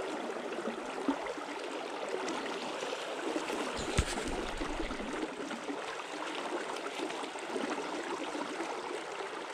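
River water flowing and babbling over stones, a steady rush, with a single sharp knock about four seconds in.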